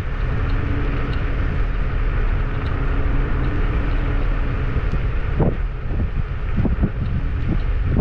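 Wind rushing over the microphone of a moving electric scooter, a steady low rumble. A faint steady hum runs through the first five seconds, and a few short low knocks come in the second half.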